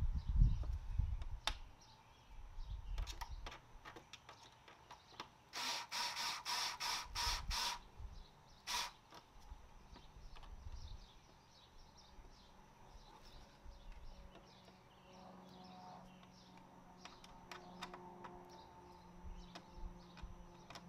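Screwdriver work on a car's plastic front grille cover: a quick run of about seven sharp clicks about a third of the way in, then one more a second later, with a few scattered single clicks against a quiet background.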